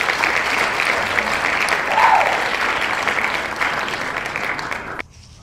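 Crowd applause sound effect: dense, steady clapping that cuts off suddenly near the end.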